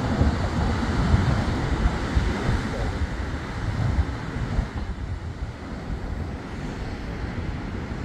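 Wind buffeting the microphone over the steady wash of surf breaking on rocks. The gusts ease off about halfway through.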